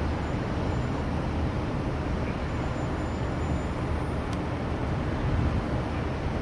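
Steady low rumble of city traffic, with a faint tick about four seconds in.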